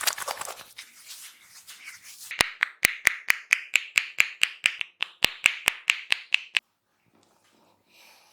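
A barber's hands making a quick run of sharp, evenly spaced cracks on the head during an Indian head massage, about five a second. The run stops suddenly about six and a half seconds in. Before it comes a short crackling rustle of hands in the hair.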